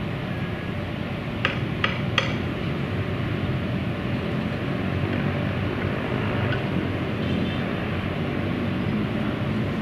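Distant jet noise from a McDonnell Douglas MD-83's twin rear-mounted Pratt & Whitney JT8D turbofans as it touches down and rolls out: a steady rushing sound. Three sharp clicks come close together about one and a half to two seconds in.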